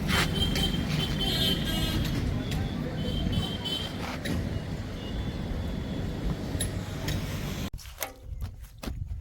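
Diesel engine of heavy earthmoving or farm machinery running with a steady rumble. Near the end it cuts off suddenly to a much quieter stretch with scattered clicks.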